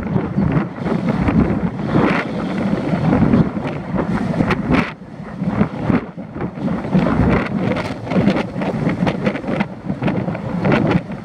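Wind buffeting the microphone of a camera mounted on a moving car, in uneven gusts over the car's road noise.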